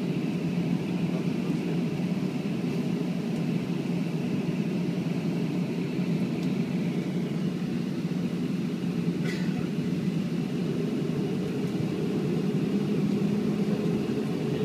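Inside the cabin of a Boeing 737-500, the CFM56-3 turbofan engines and cabin air make a steady low hum at taxi power. A faint engine tone rises slightly and grows a little louder near the end.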